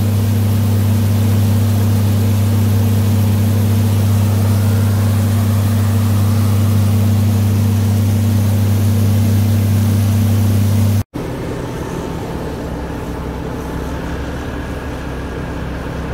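Massey combine running at a steady pitch while its unloading auger pours shelled corn into a wagon: a loud, even drone with a strong low hum. About eleven seconds in it cuts off abruptly to a quieter engine sound.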